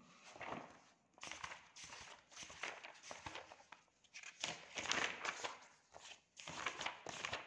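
Pages of a textbook being turned by hand: several rustles, one after another.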